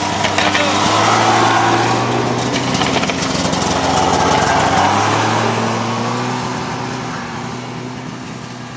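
Two snowmobile engines passing close one after the other: each grows louder as it approaches, drops in pitch as it goes by, and the sound then fades away.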